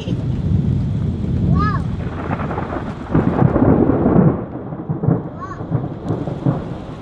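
Thunder rolling from a large thunderstorm: a continuous low rumble that swells about three seconds in and then dies back unevenly.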